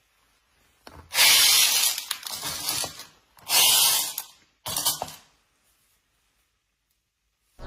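Three bursts of hissing noise: the first about two seconds long, the second about a second, the third brief.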